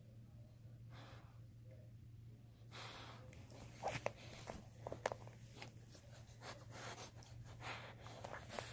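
A dog snorting and breathing in short puffs as it chews at a toy, with a few sharp clicks from the chewing about halfway through and again near the end. A steady low hum lies underneath.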